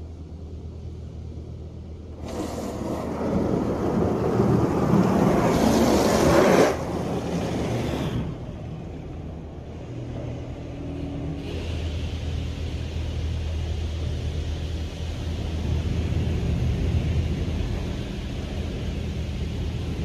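High-pressure water jets from a PDQ LaserWash 360 touchless car wash spraying the car, heard from inside the cabin. The spray rush comes in suddenly about two seconds in, is loudest around six seconds, and eases off by about eight seconds. A second, softer pass starts about eleven seconds in, over a steady low hum.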